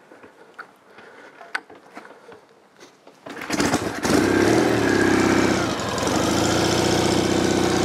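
A 1973 Norton Commando 850 Mk2's 828 cc parallel-twin engine is kick-started from cold, with no choke, its carburettors flooded by hand. After a few faint clicks it fires on one kick about three seconds in. It runs a little faster for a second, then settles into a smooth, steady tickover.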